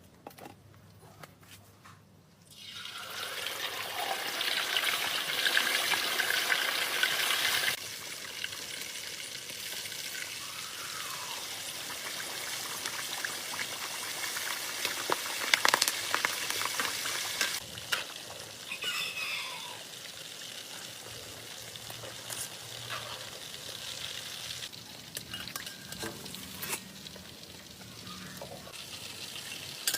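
Food frying in hot oil in a pan: a loud sizzle starts about two and a half seconds in, eases to a steadier sizzle after about eight seconds, and runs on with scattered clicks and knocks of stirring.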